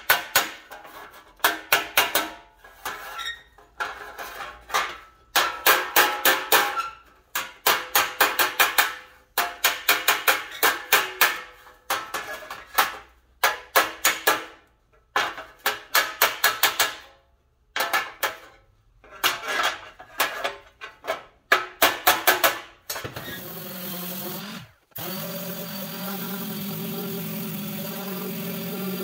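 Body hammer striking a thin steel cowl side panel against a dolly, in quick runs of blows with metallic ringing, raising a low spot to put a slight crown in the metal. About 23 seconds in, an orbital sander starts and runs steadily on the panel, cutting out briefly once.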